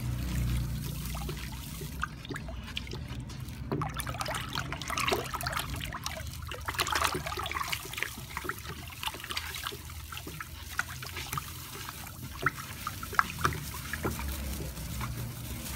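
Water in a plastic bucket being stirred with a wooden stick, trickling and sloshing, with many scattered light clicks and taps, as powdered STPP is shaken in to dissolve.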